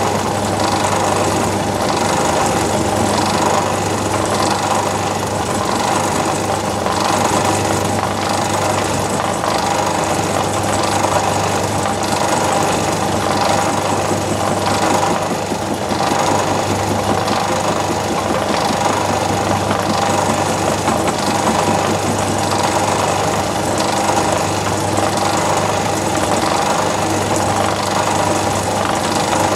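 Myford lathe running at about 300 RPM with a milling cutter in the spindle, cutting cleanly into a steel tool holder: a steady machine drone with a faint tick about once a second.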